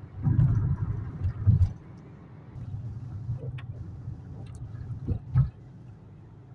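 Low rumble inside a moving car's cabin, surging unevenly for the first two seconds and again from about three seconds in. Two dull thumps come a little after five seconds.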